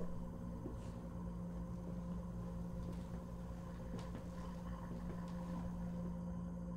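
A steady low hum, unchanging throughout, with a few faint scattered ticks and clicks over it.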